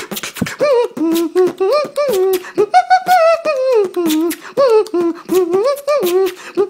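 Solo human beatboxing: mouth-made kick, click and snare strikes in a fast rhythm, with a hummed melody line gliding up and down carried over the percussion at the same time.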